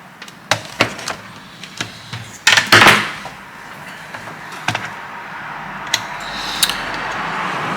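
Handling noise: a series of sharp clicks and knocks, with a louder clatter about two and a half seconds in, and a steady hiss building over the last few seconds.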